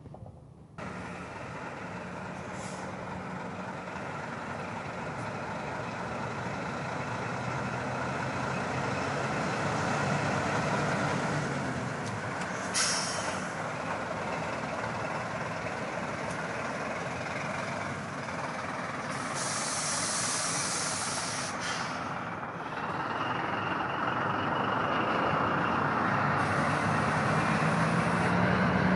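Heavy diesel engine of a mobile crane running steadily. There is a sharp knock near the middle, and a couple of seconds of hissing air later on.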